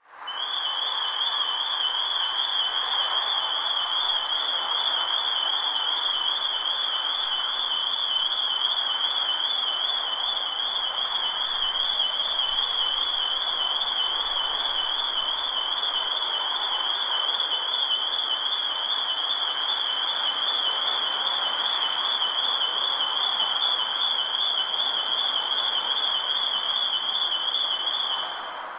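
Security alarm siren sounding one high, rapidly warbling tone without a break, over a steady hiss. It fades out near the end.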